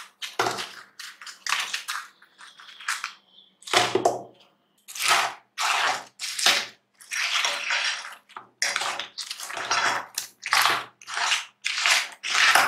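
Fried chicken wings being turned and coated in thick hot sauce in a nonstick pan with a spatula and basting brush: a run of short scraping, sticky strokes, about one or two a second.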